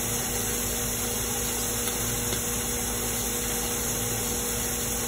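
Kitchen exhaust fan running steadily over the stove: an even whooshing hiss with a low, constant motor hum.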